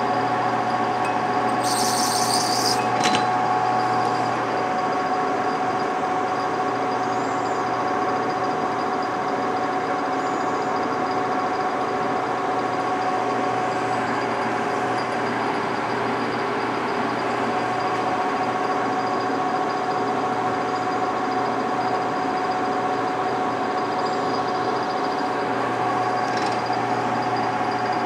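Metal lathe running and turning a bar in its chuck: a steady machine hum with a few fixed whining tones. A brief high-pitched screech about two seconds in, and a single click about a second later.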